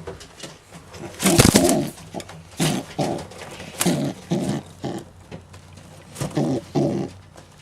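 Racing pigeons cooing, a series of short low coos about seven times, with a louder rustling burst about a second in.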